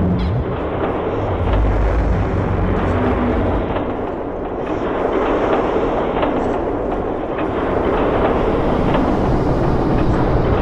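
A loud, continuous rumble of dense noise with scattered sharp clicks and knocks through it.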